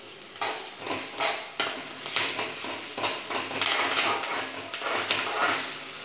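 Metal spatula scraping and stirring in an aluminium kadai, in repeated strokes starting about half a second in, while onions, green chillies and ginger-garlic paste sizzle in hot oil.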